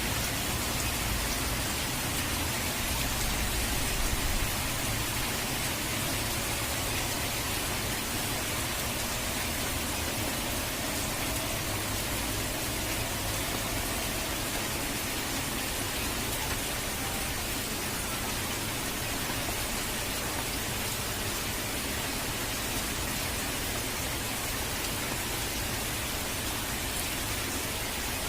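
Steady rain, a dense, even hiss with a low rumble underneath that eases slightly about four seconds in.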